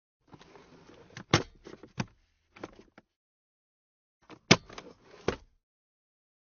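Nissan Note glove compartment being opened and shut: latch clicks and plastic lid knocks in two short bursts, the first about a second in and the second about four and a half seconds in.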